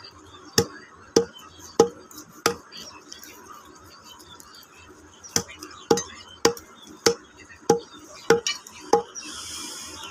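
Curved knife chopping into chicken carcasses: sharp chops about every 0.6 seconds, four, a pause of about three seconds, then seven more.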